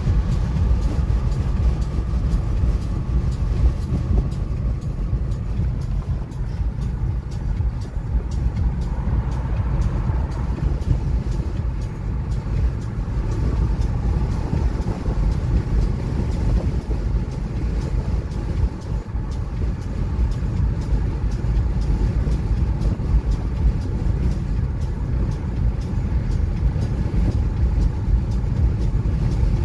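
Steady road noise inside a car cruising on a highway: a low, even rumble of tyres, engine and wind.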